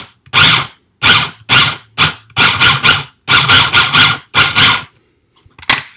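Small electric food chopper pulsed in about a dozen short whirring bursts, some single and some in quick runs, its blade churning a wet guacamole mix.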